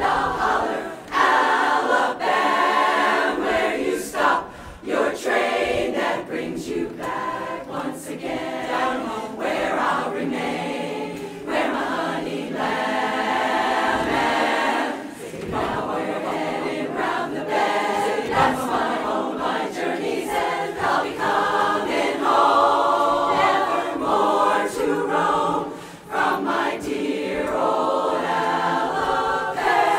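Women's barbershop chorus singing a cappella in close harmony, with a few short breaks between phrases.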